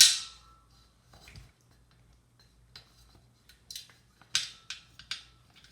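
Metal bicycle rim knocking and clanking as it is handled while the inner tube's valve stem is fitted through its valve hole. A sharp knock with a short ringing tone comes right at the start, and a quicker run of clinks near the end.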